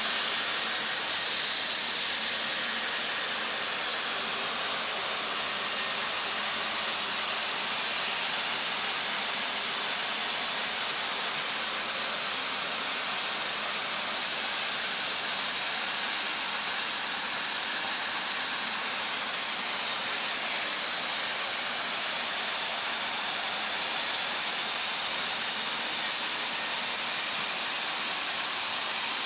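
Hot-air welding machine blowing a steady hiss while it melts a welding rod into the seam of synthetic sports flooring.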